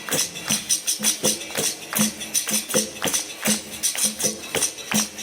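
Capoeira roda music: a pandeiro's jingles and hand strokes over drum beats in a steady, even rhythm of about three to four strokes a second.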